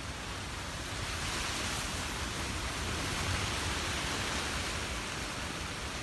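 Strong wind blowing, rumbling on the microphone, with a steady rushing hiss that grows louder about a second in.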